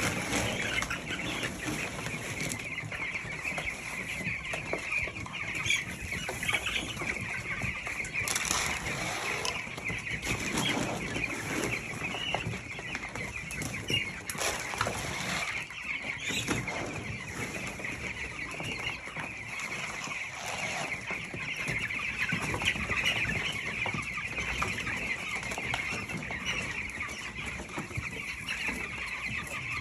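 A flock of two-week-old broiler chicks peeping continuously as they crowd the feeders for grower pellets, with wings flapping and scattered scuffling and pecking clicks.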